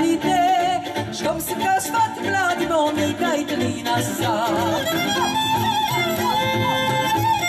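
Live Polish folk band music: two fiddles playing over a plucked double bass that keeps a steady beat. A woman sings with them in the first part, and the fiddles carry the tune toward the end.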